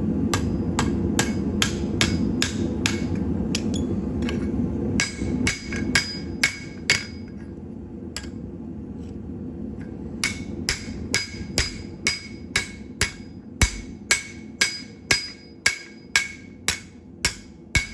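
Blacksmith's hammer striking metal on an anvil, forging a spoon, in a steady rhythm of about two blows a second with a ringing note on each blow. The blows pause for a few seconds about halfway through, then resume. A low steady rumble runs under the first five seconds.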